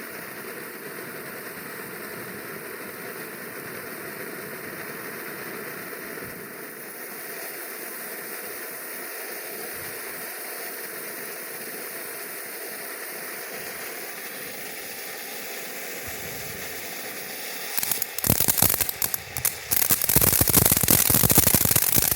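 TNT Fireworks Star Emission fountain firework burning, spraying sparks with a steady hiss. Near the end it breaks into loud, fast crackling that thickens into a dense crackle.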